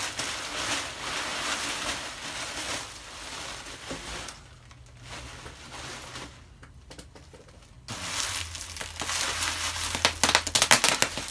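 Plastic bubble wrap crinkling and rustling as it is pulled open and handled, quieter for a few seconds in the middle. Near the end a quick string of sharp pops as bubbles are squeezed and burst by hand.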